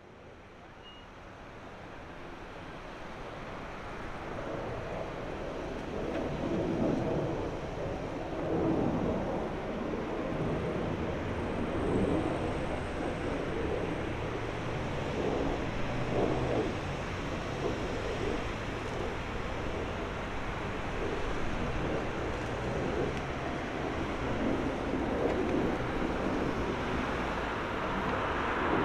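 Jet engine noise from a Boeing 777-300ER's GE90 turbofans on final approach to landing: a steady, swelling rumble that fades in over the first few seconds. Near the end it turns into a brighter, louder roar as the airliner reaches the runway.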